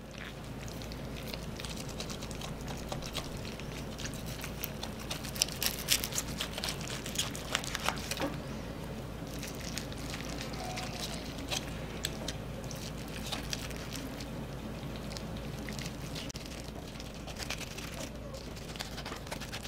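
Knife carving breast meat off the breastbone of a roast chicken while hands pull the meat free, making scattered small clicks and crackles that are busiest a few seconds in.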